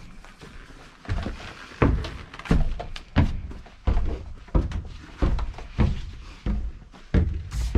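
Footsteps climbing stairs: a steady series of heavy thuds, about three every two seconds, starting about a second in.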